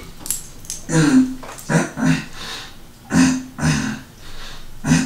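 A man making short wordless vocal sounds while flexing: about six brief pitched grunts or huffs, several coming in quick pairs.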